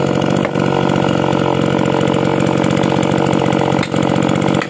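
Stihl 044 two-stroke chainsaw idling steadily, with two sharp knocks of a machete chopping at the tree, about half a second in and near the end.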